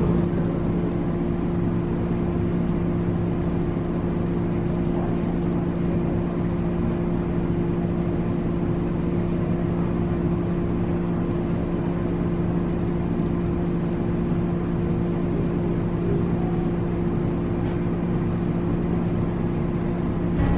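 Steady machine hum: a constant low drone with a second, higher tone above it, unchanging throughout.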